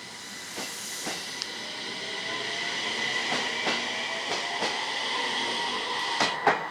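A train passing over a level crossing, its wheels clacking in pairs over the rail joints, with a steady high whine and hiss that grow louder; the loudest pair of clacks comes near the end.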